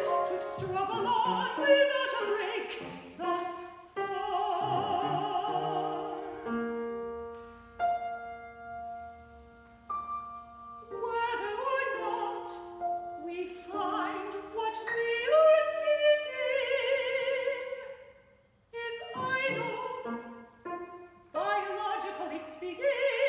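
Mezzo-soprano singing a classical art song with grand piano accompaniment, her held notes wavering with vibrato. About six seconds in the voice stops and the piano's held chords fade on their own for a few seconds before the singing returns, with a short pause near the end.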